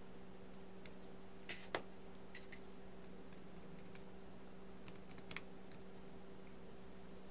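A few light taps and clicks of painting tools during gouache painting, two close together about a second and a half in and more near two and a half and five seconds, over a steady low electrical hum.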